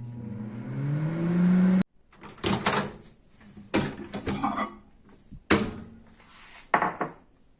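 Microwave oven running, its hum rising in pitch, then cut off abruptly. This is followed by several separate clicks and knocks of the microwave door and dish being handled.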